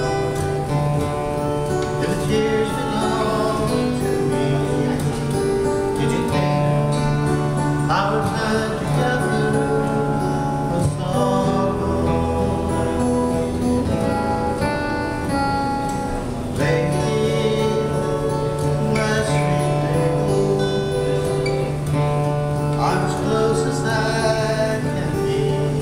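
Two acoustic guitars strummed together with voices singing a song, played live.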